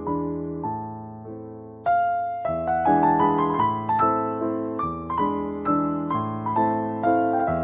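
Background piano music: single notes and chords struck and left to ring, softer at first and louder from about two seconds in.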